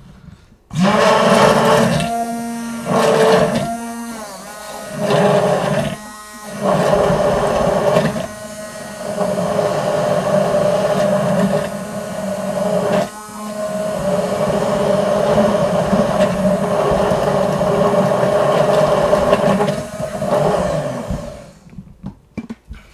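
Handheld immersion blender running in a tall cup of vinegar-and-sesame-oil dressing, emulsifying it with added yellow mustard. The motor starts about a second in and dips briefly several times. It stops shortly before the end.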